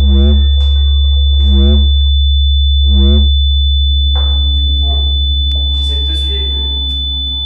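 Electronic film score: a loud low drone with a thin steady high whine over it, and a warbling synthetic tone pulsing about every second and a half. The pulses stop about three seconds in, leaving the drone fading slowly under a faint hiss, with one click a little later.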